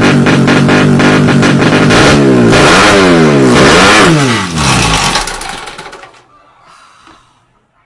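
Racing motorcycle engine running hard at high revs, then its pitch falls and rises a few times before the sound fades away to almost nothing about six seconds in.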